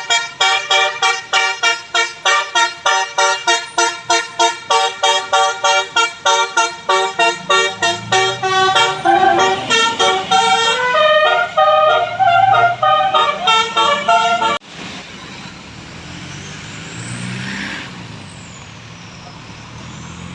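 Bus 'telolet' musical air horn playing a tune: first a rapid run of short staccato notes, then longer held notes. It cuts off suddenly about fourteen seconds in, leaving much quieter road and engine noise.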